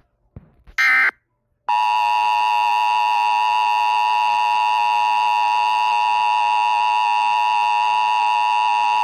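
The last of the Emergency Alert System's three short data-header bursts about a second in, then the EAS attention signal: a loud, steady two-tone alarm that starts just under two seconds in and holds without a break.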